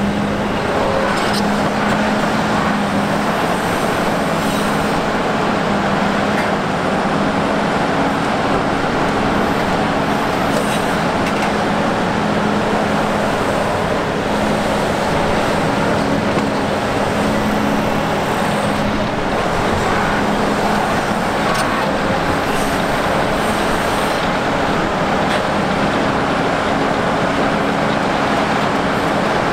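Heavy diesel earthmoving machinery at work: the engines of a Volvo EC950F excavator and Volvo A60H articulated dump trucks running steadily, a loud drone that shifts between two pitches a few times.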